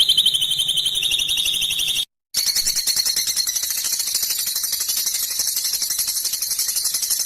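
Recorded songbird calls of the harsh rasping kind used for masteran: a fast, high-pitched trill for about two seconds, a brief cut to silence, then a long, harsh, rapidly pulsed rasping series pitched even higher.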